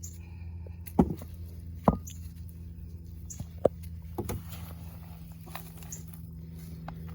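Hands working through soil in a potting container, with scattered rustling and three sharp knocks, the first two about a second apart, over a steady low hum.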